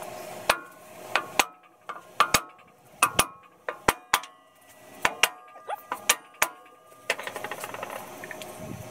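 Metal-on-metal blows on the rear brake drum of a 1944 Ford 2N tractor as it is worked off the axle: about fifteen sharp, irregularly spaced strikes, each leaving a ringing metallic tone. About seven seconds in, they give way to a quicker run of light ticks.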